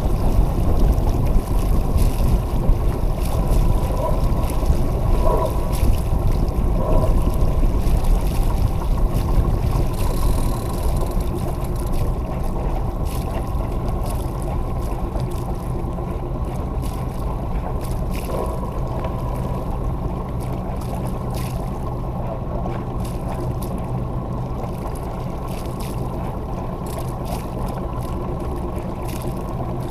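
Wind rumbling on the microphone and water rushing along the hull of a J-35 sailboat under sail. It is gustier for about the first ten seconds, then settles to a steadier rush.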